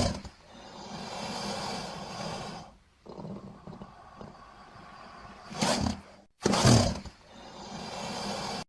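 Crocodile sound effect: a rough, noisy call without a clear pitch. There are loud bursts at the start and again about six and seven seconds in, and it cuts off abruptly at the end.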